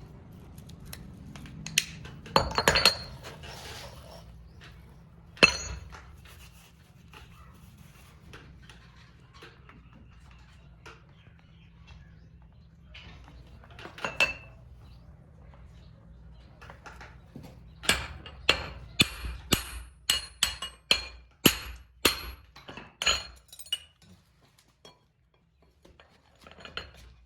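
Metal tools and engine parts clinking and tapping, with a quick run of about a dozen sharp, briefly ringing metal taps in the last third. A low steady hum runs under the first half.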